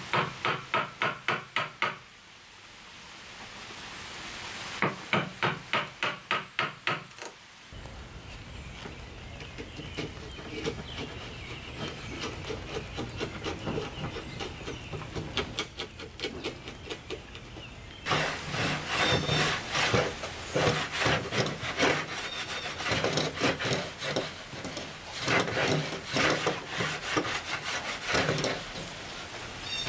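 A hand tool worked over oak in quick, repeated rubbing strokes, about four a second in runs, with a finer, steadier rubbing in the middle and denser strokes near the end.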